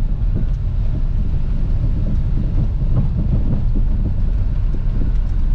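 Steady low rumble inside the cabin of a Mahindra KUV100 driving on an unpaved dirt track: tyre, road and engine noise, with small knocks from the rough surface.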